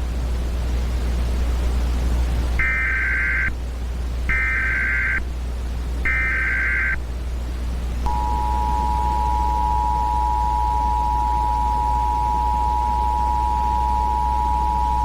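Emergency Alert System header: three short bursts of screeching digital data tones (the SAME header), followed about eight seconds in by the steady two-tone EAS attention signal, which holds on. A steady low hum and hiss run underneath.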